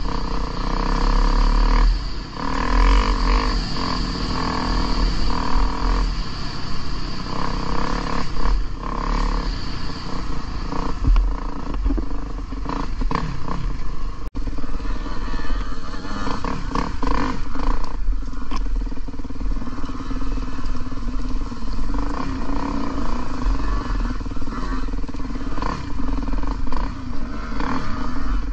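Dirt bike engine running under way, its revs rising and falling as the rider works the throttle, with knocks and rattles from the bike over a rough trail. The sound drops out for a moment about halfway through.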